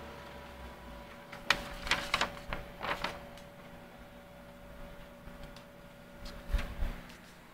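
Konica Minolta Bizhub C250 colour copier running with a steady hum, with a quick series of sharp mechanical clacks and knocks about a second and a half in and another burst near the end.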